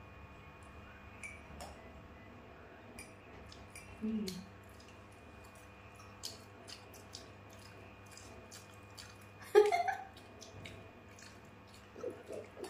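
Quiet eating sounds: scattered light clicks of a utensil and chewing, with a brief low sound about four seconds in and a louder sharp clatter near ten seconds.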